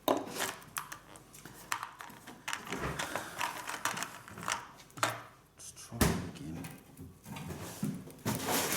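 Irregular knocks and clatters of hand tools and hardware being handled and set down against the aerated concrete block, with no power tool running. The sharpest knocks come about six seconds in and near the end.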